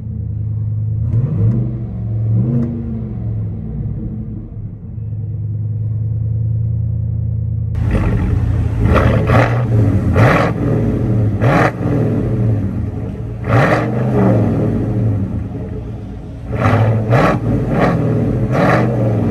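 2020 GMC Sierra 1500's 5.3-litre V8 through a Tunnel Ram true dual performance exhaust with quad tips. It is heard from inside the cab, idling with a couple of short revs, and then, about eight seconds in, from behind the truck at the tailpipes, idling while it is revved in a string of quick throttle blips.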